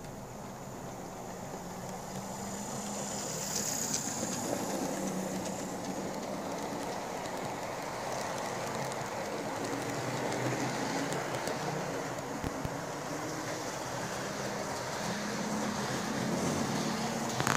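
Lima OO-scale model Class 42 Warship diesel locomotive running along the track hauling four coaches: a steady whir of the model's electric motor with the rattle of its wheels on the rails, growing louder over the first few seconds as it approaches.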